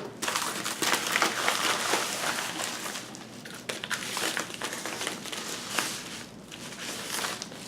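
Packaging crinkling and rustling by hand as a laptop LCD panel is unwrapped, a dense crackle of small clicks that thins out after about three seconds.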